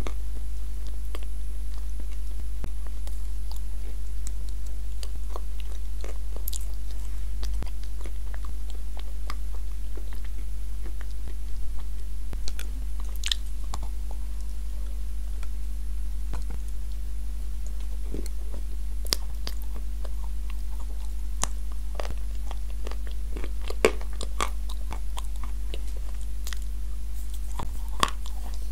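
Close-miked biting and chewing of dry pieces of edible clay sold as 'cookies', dipped in a soft wet clay paste: crisp crunches and crackly mouth clicks, coming more often in the second half. A steady low hum runs underneath.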